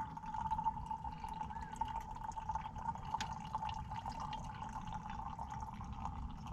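Coffee trickling in a thin stream into a camp mug, making one steady tone with small ticks and drips over it; it starts just before and stops just after.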